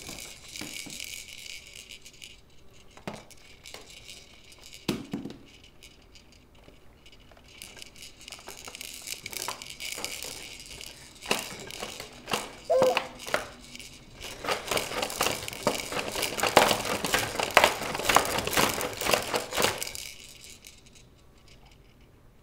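Crinkling and rattling of plastic baby toys being handled, with scattered clicks that thicken into a dense, louder run of clicking and crackling for several seconds before stopping.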